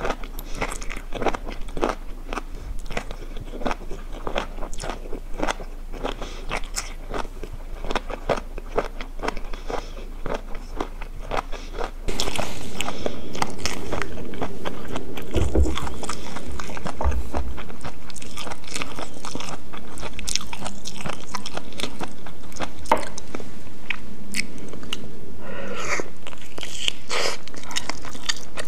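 Close-miked chewing of a mouthful of noodles, chicken and snow fungus, a quick run of small clicks, several a second. It gets louder about twelve seconds in.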